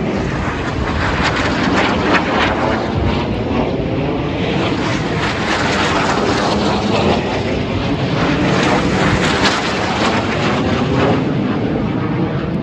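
Snowbirds formation of Canadian Tutor jet trainers flying low overhead: a loud, steady jet rush with a sweeping, phasing whoosh as the aircraft pass.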